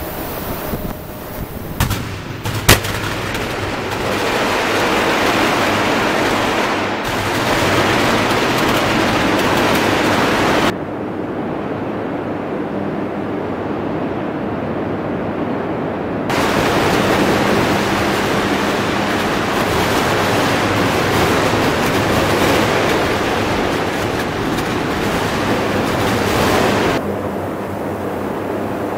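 Electric arc furnace arcing: a loud, continuous crackling noise with sharp cracks about two and three seconds in. About eleven seconds in it cuts abruptly to a duller, quieter noise with the hiss gone, then returns in full some five seconds later.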